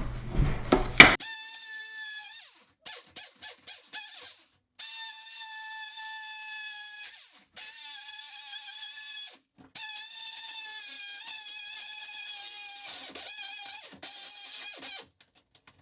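A sharp knock, then a handheld power tool's motor whining at a steady high pitch. It runs first in several quick taps of the trigger, then in longer runs of two to three seconds with stops between, as drywall is cut.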